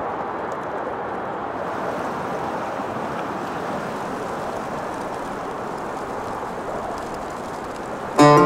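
A steady rushing noise with no distinct events in it. Acoustic guitar music comes in abruptly near the end.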